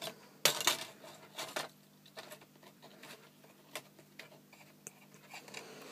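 Small, scattered clicks and taps of fingers handling a laptop cooling fan and its small wire connector while fitting them, the sharpest few in the first couple of seconds.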